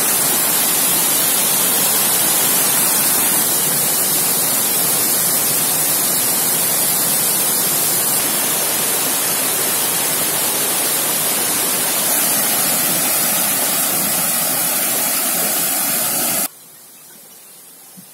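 Small waterfall pouring over a stone weir into a pool: a loud, steady rush of falling water. It drops off suddenly to a much lower level near the end.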